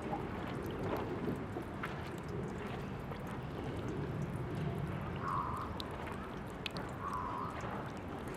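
Water running from the tap of an outdoor drinking fountain, a steady splashing trickle with small irregular spatters.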